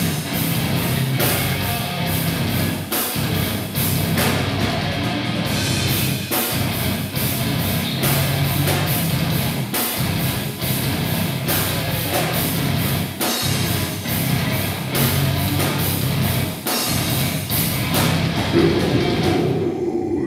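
Thrash metal band playing live: distorted electric guitar, bass and drum kit with regular, hard-hit drums. The song ends on a held note near the end.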